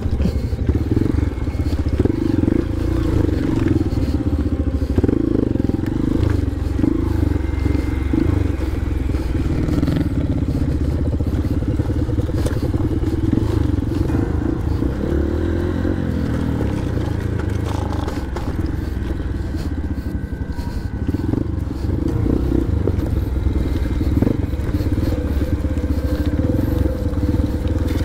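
Honda CRF150L's single-cylinder four-stroke engine running in a low gear at moderate revs as the dirt bike crawls over a rough trail, easing off briefly about two-thirds of the way through. Knocks and rattles from the bike bouncing over rocks and brush run through it.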